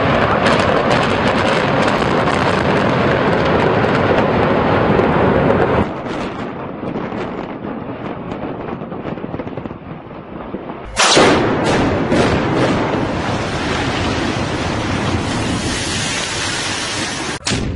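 Explosive demolition of concrete buildings. Charges crack and the first tower comes down in a dense, loud rumble. After a quieter stretch, a sudden loud blast with several sharp cracks sets off a second building's collapse, a long rumble of falling concrete.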